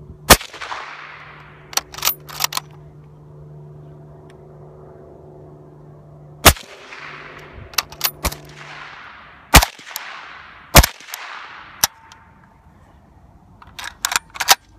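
Mosin-Nagant bolt-action rifle fired through a SilencerCo Saker 762 suppressor: four shots, each trailing off in an echo, the last two close together. Between shots the bolt is worked with short metallic clacks, and a quick run of clicks near the end comes from the action being handled.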